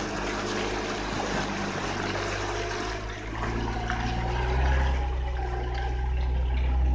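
Jeep engine running at low speed while its front tyre churns through shallow muddy water, with water sloshing and splashing around the wheel. The engine grows louder about halfway through.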